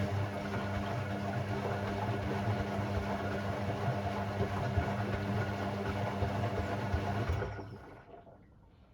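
Hoover Sportswear 1300 (AI130) washing machine running a burst of its Delicate 15 wash, a steady hum with a whirring, churning noise over it. It lasts about seven seconds, then winds down and stops, typical of the short gentle-action bursts of a delicate programme.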